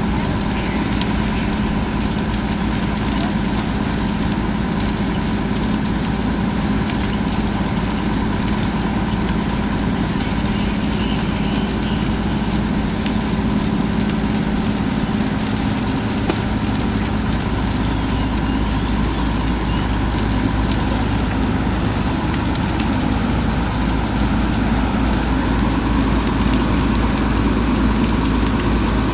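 A fire engine's motor running steadily as it pumps the hose lines, under a continuous rushing hiss of the burning house and water spray from the hose streams. The engine's steady note changes a little about halfway through.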